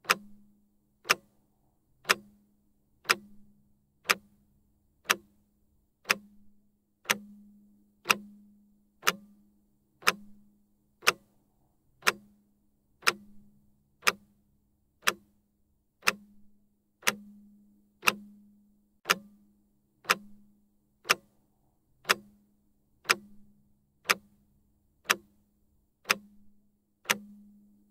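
Clock-style tick sound effect, one sharp tick every second, each followed by a short low hum, counting off a 30-second rest break.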